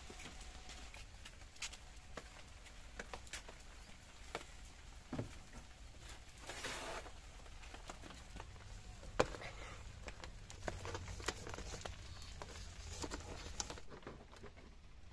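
Sandalled footsteps on wet ground and scattered light taps and clicks, with a sharp knock about nine seconds in.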